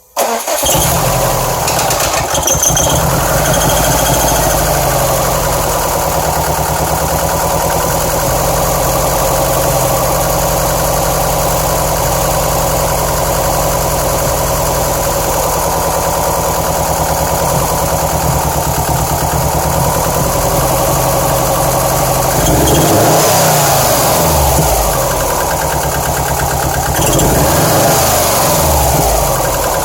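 2007 Subaru Impreza WRX STI's turbocharged 2.5-litre flat-four idling roughly, revved twice near the end. The owner reports misfire codes on cylinders 1 and 3.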